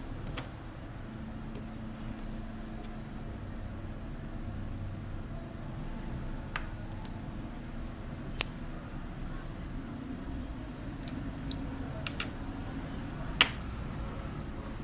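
Light, sharp clicks of small metal tools and parts being handled during disassembly of a Tissot T-Touch watch movement, about five in all and spread out, the loudest a little past halfway, over a steady low hum.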